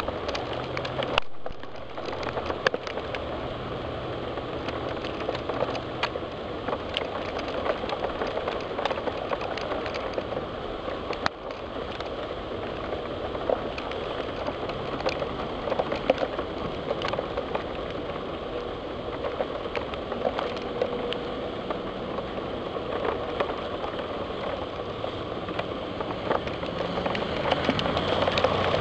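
Steady heavy rain during a thunderstorm, with many separate drops ticking against window glass; it grows a little louder near the end.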